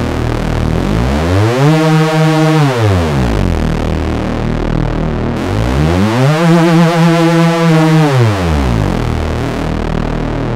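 Nord Lead A1 synthesizer playing the "Monsta Bass" preset: a steady deep bass under two swooping notes that glide up in pitch, hold, and glide back down, the second one wobbling while it is held.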